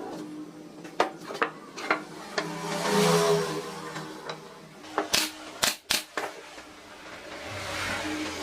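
Workshop handling sounds: scattered sharp knocks and clicks of wood and hand tools, with a brief swelling whirr about three seconds in.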